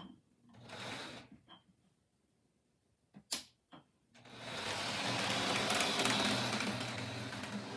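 HO-scale Rivarossi diesel locomotive chassis, shell removed, running around the track under power: a steady mechanical whir and rattle with a low hum. It starts about four seconds in, after a few light clicks.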